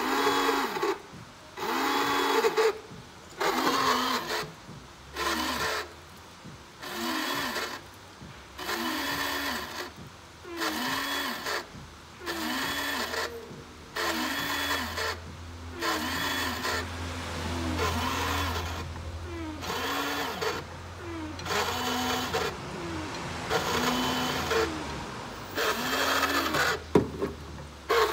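Electric windshield-washer pump switched on and off over and over: short whirring bursts, about one every second and a half, each winding up and back down. The pump is being cycled to flush salt deposits out of a clogged washer line.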